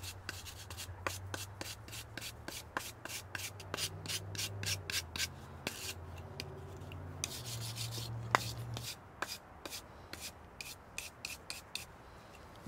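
Stiff hand brush scrubbing the charred surface of a burnt pine block in quick repeated strokes, scraping off the char for a shou sugi ban finish.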